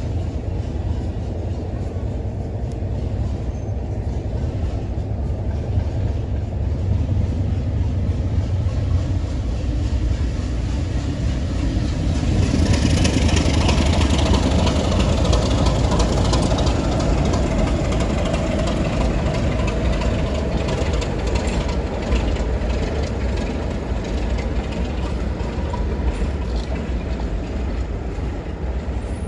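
A heritage railway train running past, a steady low rumble that swells to its loudest about halfway through, with a hiss joining the rumble.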